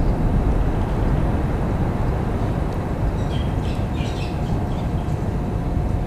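Steady outdoor field ambience: an even low rumble with a faint steady hum, and a few faint high chirps a little after the middle.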